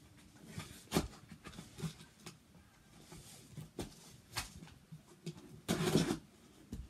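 Scissors cutting the packing tape on a small cardboard box, with scattered clicks and knocks as the box is handled, and a louder scraping rustle of tape and cardboard near the end.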